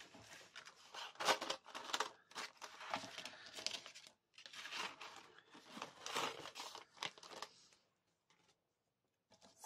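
Quiet rustling and crinkling of card stock, a plastic storage sheet and thin metal cutting dies being handled, in irregular bursts that stop near the end.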